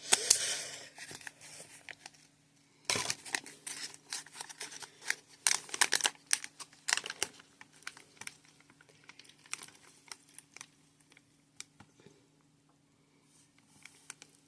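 Plastic packaging being crinkled and torn open by hand, in irregular bursts of sharp crackles that thin out near the end.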